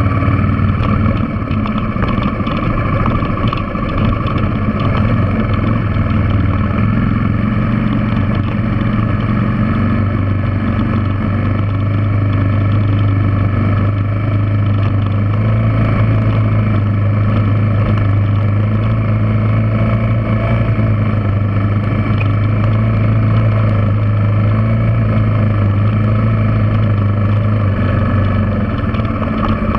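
Yamaha TW200's air-cooled single-cylinder four-stroke engine running steadily under way on a gravel trail climb, easing off slightly near the end.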